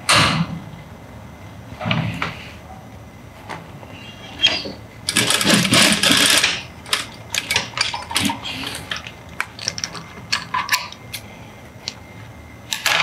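Industrial lockstitch sewing machine running for about a second and a half, tacking a bias-tape loop onto a potholder. Before and after it there are scattered clicks of fabric handling, and near the end scissors snip the thread.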